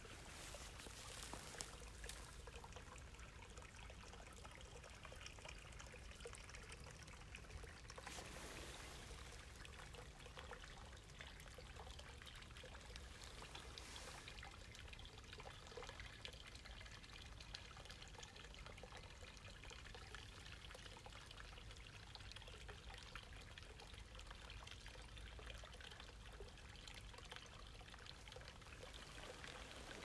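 Faint, steady trickle of a small river's current.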